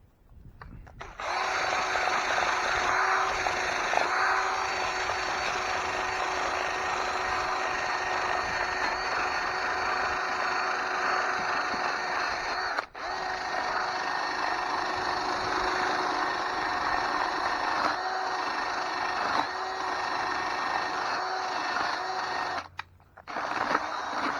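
A power tool spinning a wire wheel, scrubbing rust off the case of a Ford T19 manual transmission: a steady motor whine with a rough brushing hiss. It starts about a second in, dips for a moment around the middle, and stops briefly near the end before starting again.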